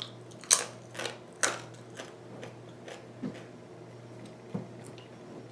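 Chewing crunchy food close to the microphone: sharp crunches, several in quick succession in the first couple of seconds, then a few more spaced out.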